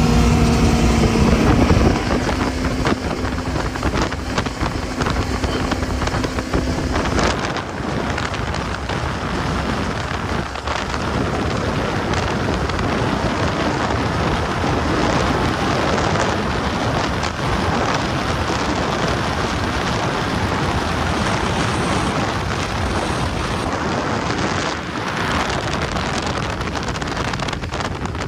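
HTM performance boat on a high-speed run with its freshly re-jetted and tuned engine. A steady engine tone is plain for the first seven seconds or so, then wind rushing over the microphone and water rushing past the hull take over.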